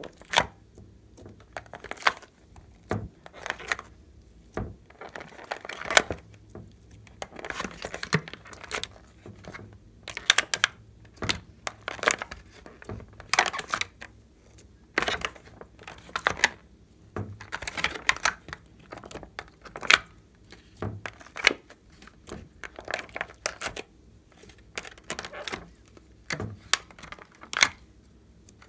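Glossy slime and soft clay being squeezed from plastic piping bags and pressed by hand into a glass dish: irregular sticky pops and crackles, with thin plastic crinkling.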